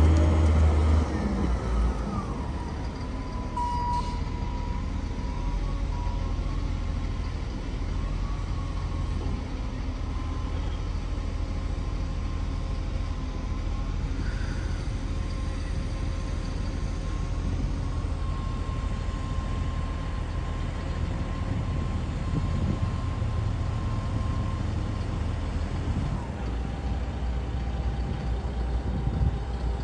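A heavy vehicle's engine running steadily with a low rumble, with a thin steady whine over it for most of the time.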